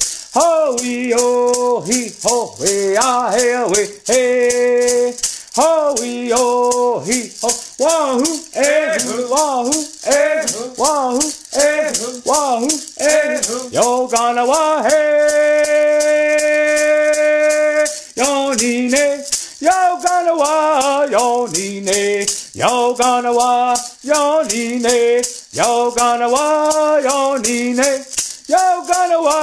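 Traditional Cherokee Friendship Dance song: a single man singing vocables over a steady, even beat from a shaken hand rattle. The voice moves through short phrases and holds one long note about halfway through.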